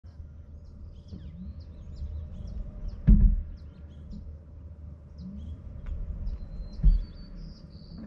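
Two dull thumps from a Tesla Model 3, about four seconds apart, heard as the brake is tapped while creeping at 3–4 mph on the car's first drive of the day. Birds chirp throughout.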